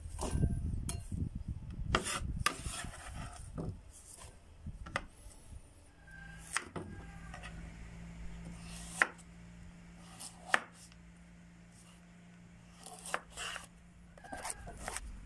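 Kitchen knife working on a bamboo cutting board: onion pieces scraped off the board into a glass bowl, then a carrot sliced into strips, with sharp taps of the blade on the board. A faint low steady hum runs underneath from about six seconds in.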